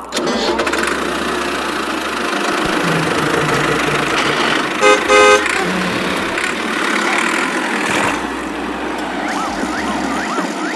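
A vehicle's engine or motor running steadily, with two short horn toots about five seconds in.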